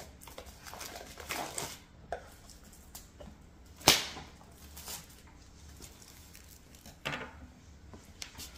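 A cardboard product box being handled and opened: scattered rustles and scrapes, with one sharp click about four seconds in, the loudest sound, and a smaller one near the end.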